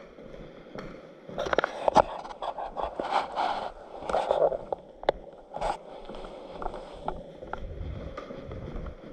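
Scraping and rustling with several sharp clicks and knocks scattered through it, the busiest stretch in the first half.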